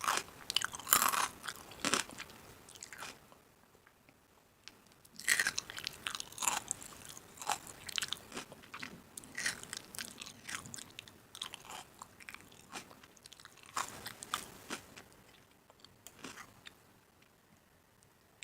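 Crunchy snack being bitten and chewed close to the microphone: groups of sharp, crisp crunches with short pauses between them.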